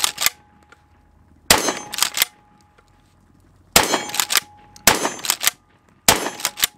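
Tristar Cobra 3 Marine 12-gauge pump-action shotgun firing about four shots in quick succession, each followed by clacks from the pump action.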